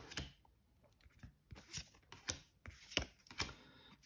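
Yu-Gi-Oh! trading cards being leafed through by hand, each card slid off the stack with a short papery flick, irregularly about two a second.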